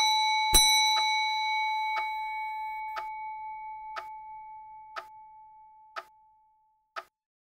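Clock ticking evenly once a second under a bell. The bell is already ringing, is struck once more about half a second in, and its single clear tone fades away over about six seconds.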